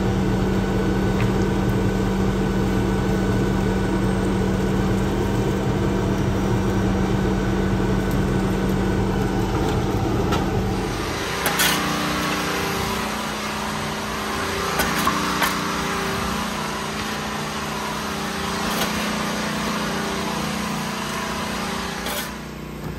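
Engine of a grapple-claw debris truck running at a steady speed. About halfway through the sound shifts to a lighter, steady hum, with a few sharp knocks of debris.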